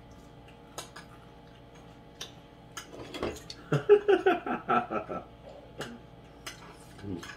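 Spoon and fork clinking and scraping on ceramic dinner plates while eating, as scattered sharp clicks. About halfway through, a person's voice makes a short run of quick pitched sounds, the loudest thing here.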